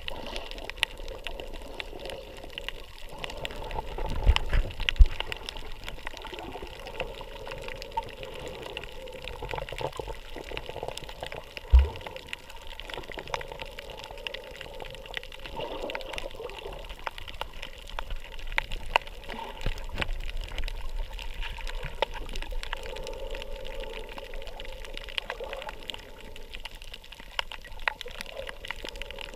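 Underwater ambience heard by a submerged camera: a steady, muffled wash of water with scattered sharp clicks. A few loud low thumps come about four to five seconds in and again near twelve seconds.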